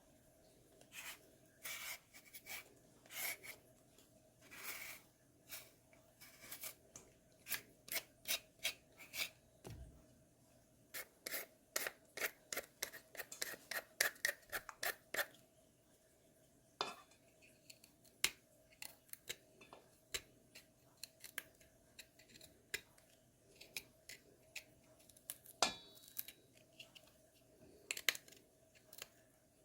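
Crisp radish being cut up with a kitchen knife: a run of short, sharp cutting clicks at uneven spacing, in quick bursts at times, over a faint steady hum.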